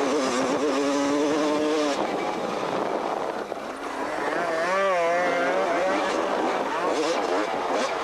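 Honda 250cc two-stroke motocross bike engine revving up and down as it is ridden round the track, heard from on board. The revs drop off about three and a half seconds in, then climb sharply again.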